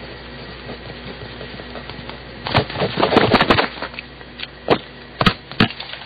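BIC mechanical pencils in a writing test on paper: a quick flurry of taps and scratches about two and a half seconds in, then several single sharp clicks, over a steady tape hiss.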